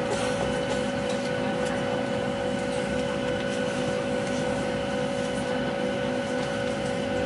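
Airliner cabin noise: a steady drone with a constant whine held at several fixed pitches, from the aircraft's engines and air systems running.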